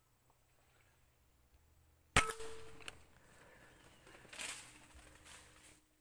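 A single air rifle shot: one sharp crack about two seconds in with a brief ring after it and a faint click just after. About two seconds later comes a softer stretch of rustling noise.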